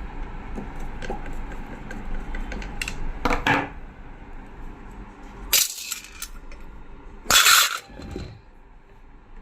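Metal parts and tools clinking and clattering while a zig-zag sewing machine is being opened up, in three short bursts, the last the loudest.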